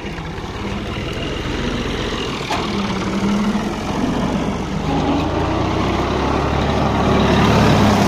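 Ghazi farm tractor's diesel engine running steadily under load while driving a front-mounted wheat reaper, getting louder toward the end.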